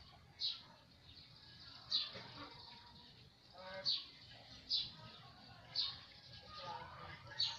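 A bird chirping: short, sharp, high chirps repeated roughly once a second.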